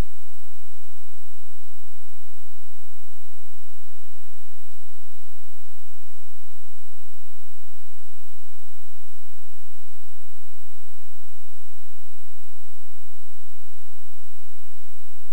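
Loud, steady electrical hum and hiss: many fixed tones over an even noise, unchanging throughout, with no voice coming through. It is typical of a fault or dropout in the microphone and recording chain.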